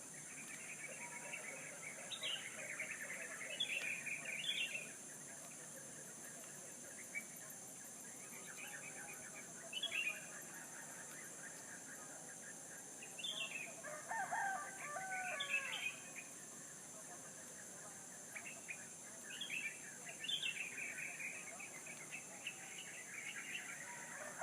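Small birds chirping and twittering in short bursts again and again, with a rooster crowing once about halfway through, over a steady high-pitched hiss.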